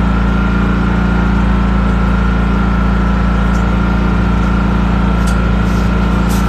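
An engine running steadily at idle, a constant low drone with a thin steady whine above it. A few short faint hisses come near the end.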